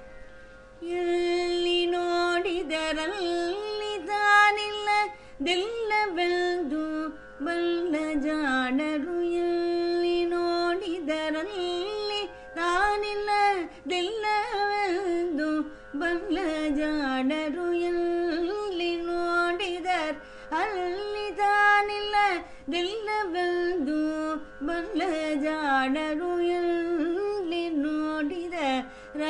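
Carnatic music in Mohana raga: a wordless melodic line, sliding and ornamented, over a steady drone, with a short break every few seconds. This is the opening alap before the devaranama's lyrics begin.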